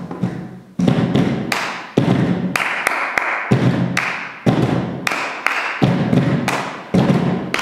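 Hand percussion on upturned plastic storage boxes, hollow thuds struck in a steady rhythm of about two a second, with hand claps mixed into the beat from about a third of the way in.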